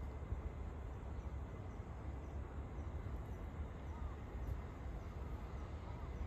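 Outdoor background sound: a steady low rumble, with a couple of faint short chirps about four seconds in.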